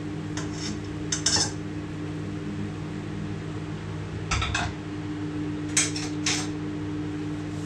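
Serving utensils clinking and scraping against a plate as food is dished up: a handful of short clinks spread through, over a steady low hum.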